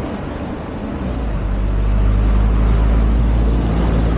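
A small truck driving past close by: engine hum and tyre noise on asphalt build to their loudest about two seconds in, then ease slightly as it moves away.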